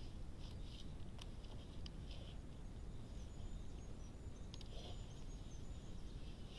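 Brown bear rubbing against a tree trunk: faint, irregular scraping of fur on bark, over the steady low hiss and rumble of a trail camera's microphone.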